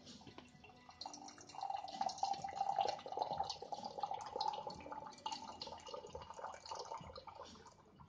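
Water pouring in a thin stream from the spout of a Yixing clay teapot into a glass pitcher, splashing into the water already inside. It is loudest in the first half and eases toward the end.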